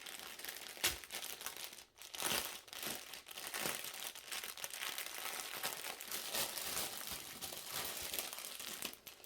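Plastic bags of diamond-painting drills crinkling as they are handled and sorted, with a steady run of small crackles and rustles.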